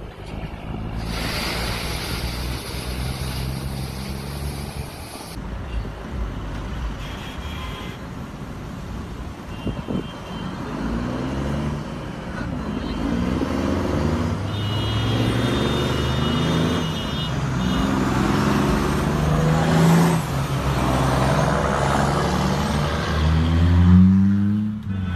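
Loaded dump truck's Detroit Series 60 diesel engine pulling away. Its pitch climbs and drops back several times as it shifts up through the gears, and it gets louder near the end.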